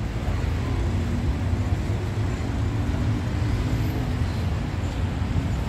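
Steady low rumble of road traffic going by, with an engine's drone standing out for a couple of seconds in the middle.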